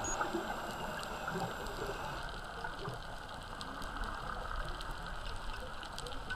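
Underwater ambience picked up through a camera's housing: a steady low rushing with faint scattered clicks.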